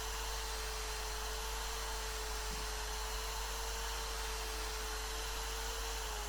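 Electric drill running steadily with a steady whine, spinning a bit wrapped in wet 600-grit sandpaper inside a clutch slave cylinder bore to scour deposits off its walls. The whine slows and drops in pitch near the end.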